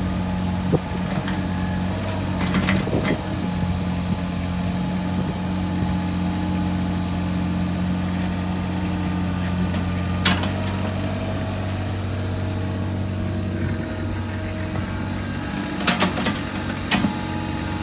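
Diesel engine of a Caterpillar 303SR mini excavator idling steadily, with a few sharp clicks and knocks over it, one about ten seconds in.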